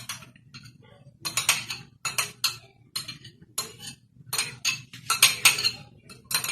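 Spoon clinking and scraping against a mixing bowl in a run of irregular short strokes, as chopped onions are added to the mixture.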